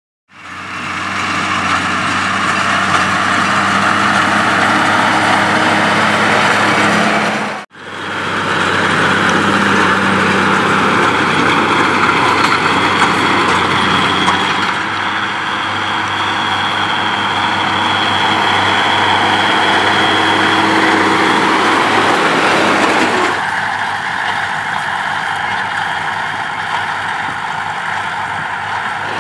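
Fendt Favorit 824 tractor's diesel engine running steadily under load, driving a Claas Quadrant 2200 large square baler as it bales grass, with the baler's machinery working. The sound drops out for an instant about eight seconds in and turns duller about two-thirds of the way through.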